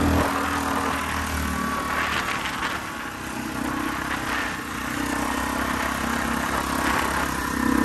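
Yamaha ATV engine running under load as the quad climbs a grassy slope, its note easing off around the middle and building again near the end.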